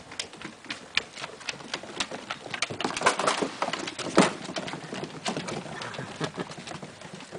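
Paws and claws of Airedale Terrier puppies and their mother pattering and scrabbling on wooden deck boards as they run and play: irregular light clicks and scuffs, with a louder knock about four seconds in.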